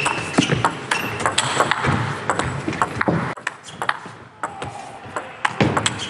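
Table tennis ball being hit back and forth in a rally: a quick run of sharp clicks of the celluloid-type ball on the bats and the table, thinning out and quieter in the second half.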